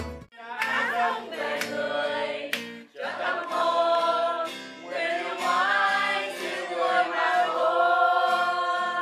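A group of women singing a song together to an acoustic guitar, with a short break between phrases about three seconds in.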